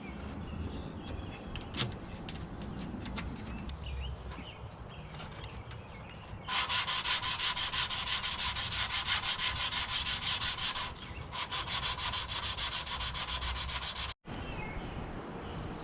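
Hand sanding a high-temp tooling board canopy plug: quick, rhythmic back-and-forth sanding strokes start about six seconds in. They pause briefly, then resume until a sudden cut near the end.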